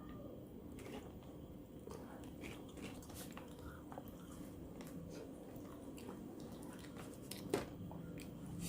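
A person chewing food close to the microphone, faint, with scattered soft mouth clicks and one sharper click near the end.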